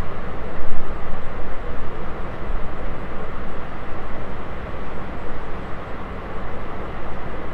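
Steady outdoor background noise with a strong low rumble that rises and falls slightly; no distinct events stand out.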